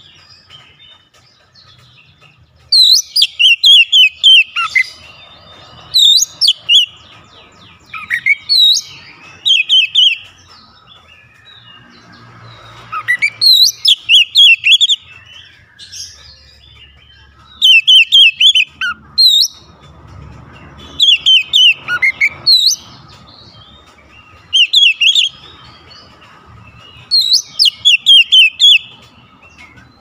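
Male Oriental magpie-robin (kacer) singing loudly in short bursts of rapid, sharp, high notes, the 'tembakan' shots, with a new burst every one to three seconds and brief pauses between.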